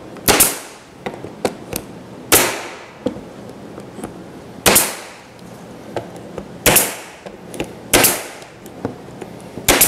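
Pneumatic stapler driving staples through a plywood beadboard panel into a pine frame: six sharp shots about every two seconds, each with a short decay, with fainter knocks between them.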